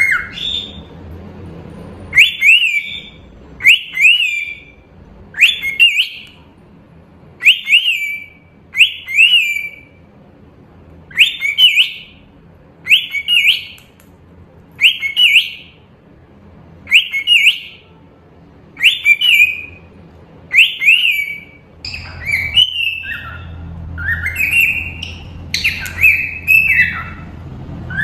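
Cockatiel whistling a short chirping call over and over, about every one and a half to two seconds. Past the two-thirds mark the calls turn more varied and run into one another.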